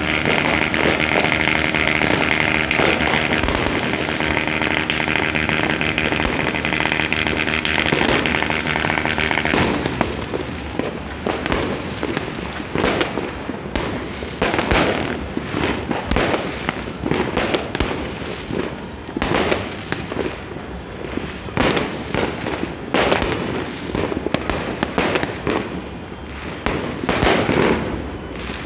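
New Year fireworks: a ground fountain gives a steady rushing hiss with a held tone for about the first ten seconds, then a dense, irregular run of bangs and crackles from firecrackers and aerial bursts.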